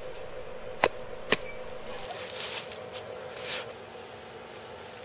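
Hammer striking a hot piece of railroad-spike steel set on an old axe head, twice about half a second apart, driving the saw cuts open. A soft rustling follows.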